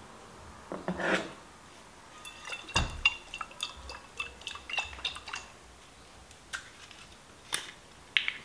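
Kitchen food-preparation sounds: a short wet squelch, then a quick run of light clinks of a utensil against a glass or ceramic dish, and a few single taps near the end.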